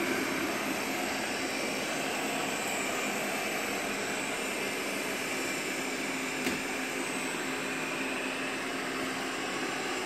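eufy robot vacuum running steadily, its suction motor and brushes making an even whirring noise with a low steady hum beneath. A single sharp click about six and a half seconds in.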